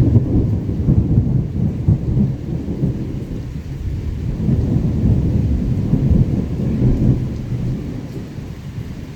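Thunder rumbling over steady rain, loudest at the start, swelling again midway, then dying away near the end.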